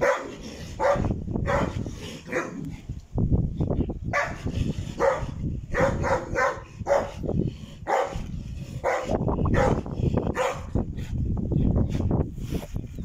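Large dogs barking repeatedly, a run of barks that come a second or less apart.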